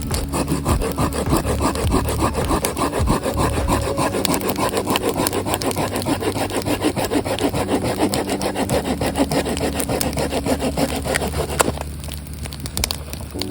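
Hand saw, a 210 mm Samurai Kishi folding pruning saw, cutting firewood with steady, rhythmic back-and-forth strokes that stop near the end.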